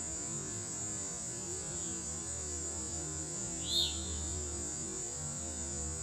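Hummingbird hovering at a feeder, its wings making a low steady hum, under a steady high hiss. One short chirp sounds near four seconds in.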